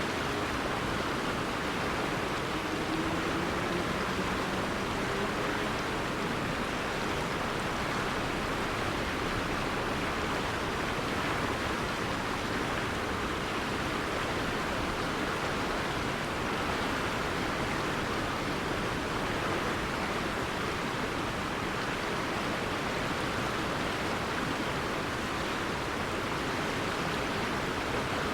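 River water flowing steadily in an even, unbroken rush. A faint low hum rises slowly in pitch during the first several seconds.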